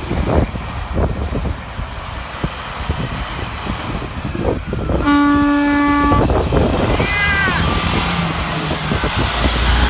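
Cabover semi-truck, a Freightliner Argosy hauling a car-carrier trailer, running as it turns and pulls past. About halfway through, its horn sounds one steady note for just over a second, followed a second later by a short toot that falls in pitch.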